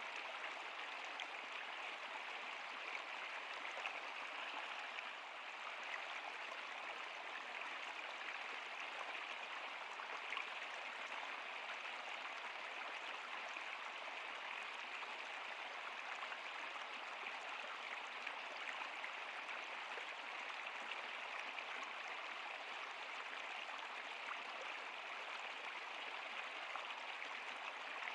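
Steady rush of a flowing stream or river, an even water sound with many small splashes and no change in level.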